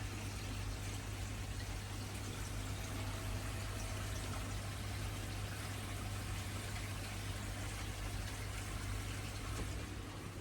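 Water pouring steadily into a koi pond, with a steady low hum underneath.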